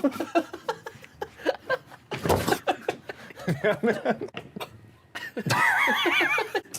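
Two men making silly nonverbal vocal noises and laughter, with a short noisy burst about two seconds in and a high, wavering vocal warble near the end.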